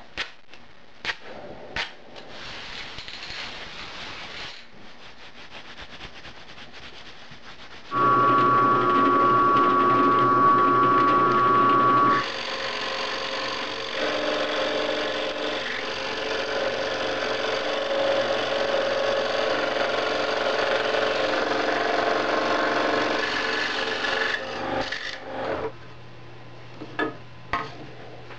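Woodworking power saw cutting birch. About eight seconds in, a loud machine with a steady whine starts and runs for about four seconds. A steadier running-and-cutting sound follows for about twelve seconds, and it stops with a few knocks. Before the machines start there is rubbing and handling of wood.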